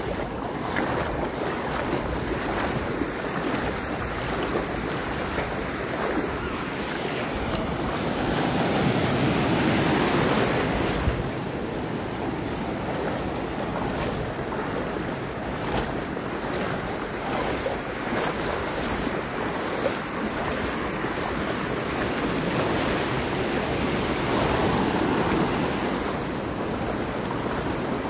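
Small North Sea waves washing and breaking on the shore, a continuous surf wash that swells louder twice, about eight and twenty-four seconds in. Wind buffets the microphone.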